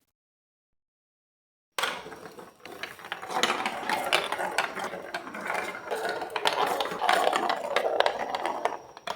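Marbles rolling and clattering down a plastic Lego Duplo block track: a dense run of rapid clicks and rattles that starts suddenly about two seconds in and stops just before the end.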